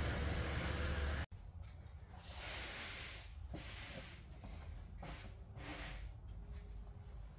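Ford 4.2-litre V6 idling roughly with a steady hiss of air, the rough idle caused by a small vacuum leak at the PCV hose elbow. About a second in the sound cuts off abruptly, leaving faint intermittent rustling.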